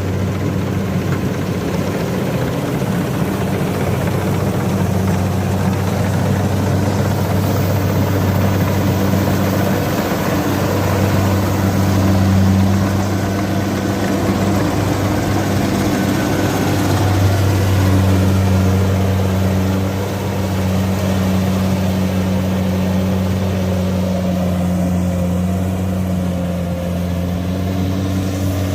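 Kubota CD93 rice combine harvester running steadily with a loud low engine hum, swelling a little about twelve and eighteen seconds in.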